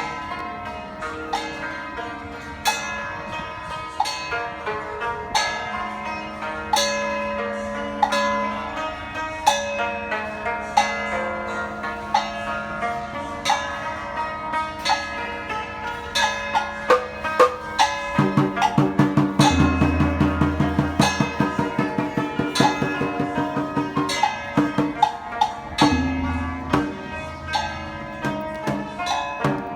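Chaozhou opera accompaniment: a traditional ensemble of pitched instruments over gongs, bells and drums struck throughout. About two-thirds of the way in, a fast run of low strikes, about five a second, lasts several seconds.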